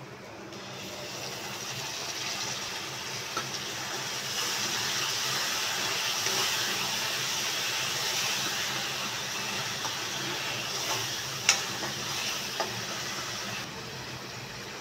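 Onion and tomato masala sizzling in hot oil in a metal kadhai, the hiss growing louder a couple of seconds in. A metal ladle knocks against the pan a few times, once sharply about two thirds of the way through.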